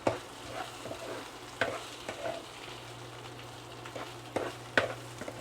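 Rice and crisp-fried onions sizzling in oil in a pot while being stirred, the utensil scraping and knocking against the pot about six times. A steady low hum runs underneath.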